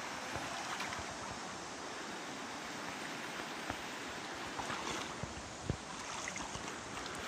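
Shallow stream water flowing and rippling over river rocks, as a steady rushing. There are a couple of small knocks in the second half.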